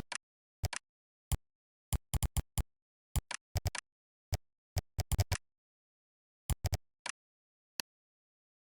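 Computer keyboard typing: irregular single keystrokes and short quick runs of keys, with a pause of about a second after the middle and a few scattered strokes near the end.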